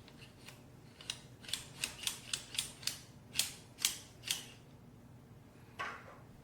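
A series of about ten sharp clicks from the metal tripod ball head being handled and adjusted, followed near the end by a short squeak that falls in pitch.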